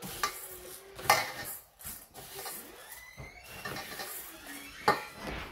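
Plastic measuring cup scooping dry mung dal in a stainless-steel bowl: grains rattle, and the cup clatters against the bowl three times, the loudest about a second in and near the end.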